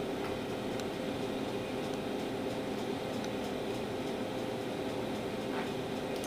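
Steady, even mechanical hum of room tone, like an appliance or fan running, with a few faint ticks.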